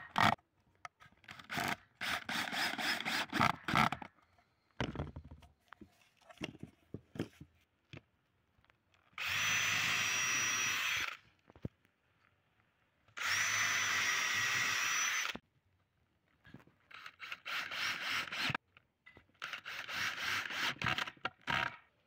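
Cordless drill working pine boards: short, stuttering bursts as it drives screws, and in the middle two steady runs of about two seconds each, with an even whine, as it drills holes in the wood.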